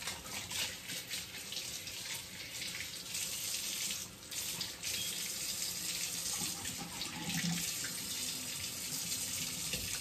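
Kitchen faucet running, water splashing into the sink as something is washed under it, with a short break about four seconds in.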